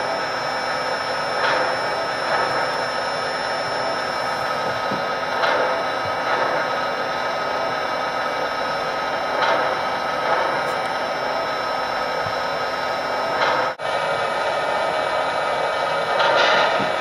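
Steady whirring of a Lionel Alaska Jet Snow Blower's fan blowing fog over the layout. Soft puffs come in pairs about every four seconds, and the sound drops out for an instant about three quarters of the way through.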